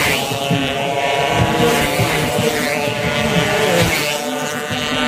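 Several 120cc underbone race motorcycles revving hard at high pitch, their engines overlapping and rising and falling in pitch as they race along the street circuit.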